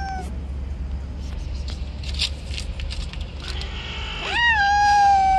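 Cats yowling at each other: a long drawn-out yowl begins about four seconds in, pitched and slowly sagging, after the tail of an earlier one at the start. It is the angry yowling of a territorial standoff between cats.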